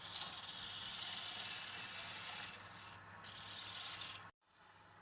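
Steady rubbing or scraping noise over a low motor hum, cut off abruptly about four seconds in and resuming more quietly.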